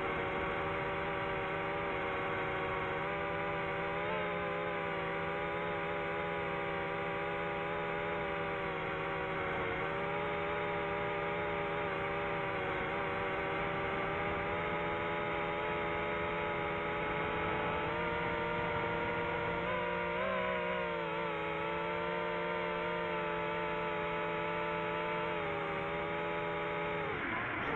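Quadcopter drone's motors and propellers whining steadily. The pitch wavers as the throttle changes, rising briefly about two-thirds of the way through and falling away near the end.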